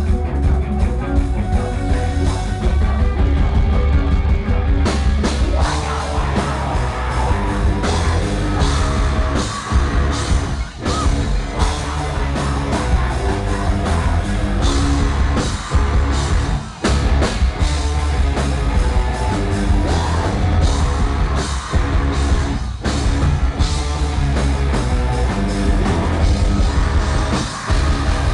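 Live rock band playing: distorted electric guitars, bass and drum kit, with a male singer, and very heavy low bass.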